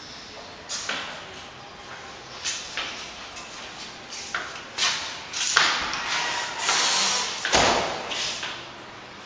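Footsteps on bare concrete floors echoing in empty rooms, about two a second, with a louder noisy stretch and a low thump about three quarters of the way through.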